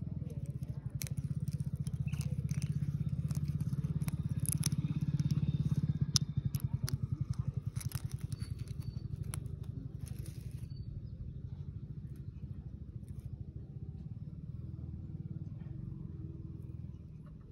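Eggshell crackling and scraping as fingers peel shell off an egg, with sharp clicks that stop about ten seconds in. Under it a steady low engine-like throb with a fast even pulse runs throughout and is the loudest sound.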